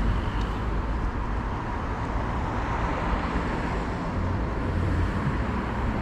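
Steady outdoor background noise: a low rumble with a hiss over it, even throughout, with no distinct events.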